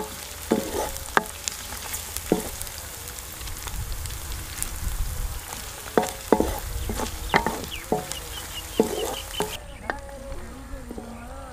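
Onions, garlic and ginger frying in oil in a metal pot, a steady sizzle, with a wooden spatula stirring and knocking against the pot so that each stroke rings briefly. The sizzle stops suddenly near the end.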